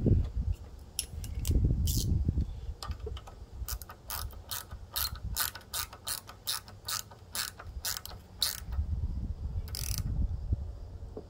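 Ratchet wrench clicking in a run of short, sharp clicks, about two to three a second, while the carburetor mounting nuts on a push mower's engine are tightened. A low rumble rises at the start and again near the end.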